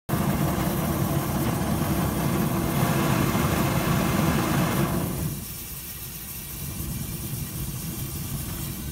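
Gas forge burner firing an open flame: a steady rush of burning gas with a low rumble. It drops clearly in level about five seconds in and carries on more quietly.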